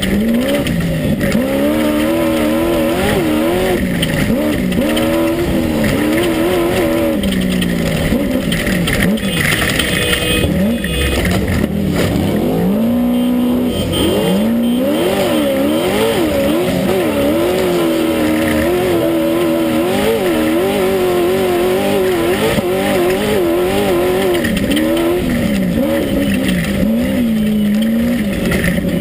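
Class 1 unlimited off-road race buggy's engine at race pace, heard from inside the car, its pitch rising and falling constantly under changing throttle. It dips about twelve seconds in, then climbs again, over a constant rushing noise.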